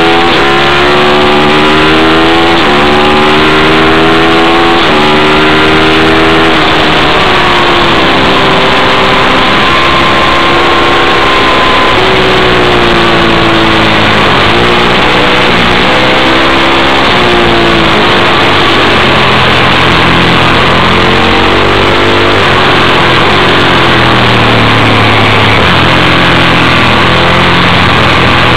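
Ducati 1098's 90-degree V-twin engine at racing speed, pulling hard up through the gears with quick upshifts, held at steady high revs for a few seconds, then coming off the throttle and downshifting before rising through the gears again. A strong rush of wind runs under it, and the camera sits on the instrument panel.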